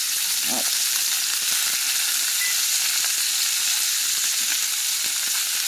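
Chicken breast pieces frying in oil in a cast-iron skillet: a steady, high sizzle, with a few faint clicks as metal tongs turn the pieces.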